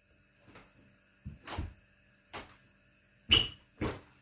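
Several short, separate knocks and thumps as chicken wings are handled and coated in flour in a bowl, the sharpest about three seconds in.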